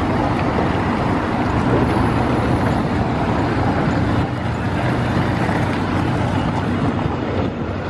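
Steady motor-vehicle noise: an engine's low, constant hum under an even wash of road noise.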